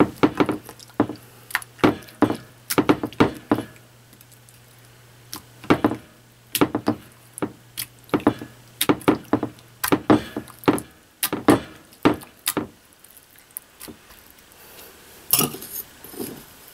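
A hand patting and rubbing seasoned raw chicken breast cutlets in a glass baking dish: a run of irregular short slaps, with light knocks against the glass. The strokes come several to a second and thin out for a while in the last third.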